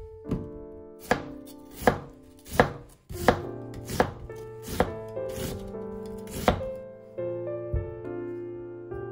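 Chef's knife slicing an onion thinly on a bamboo cutting board: about ten crisp knife strokes down onto the wood, a little more than one a second. Background music plays underneath.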